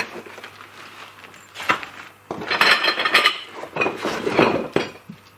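Hard clinking and rattling of tent frame parts being handled: a sharp knock, then a couple of seconds of busy clattering.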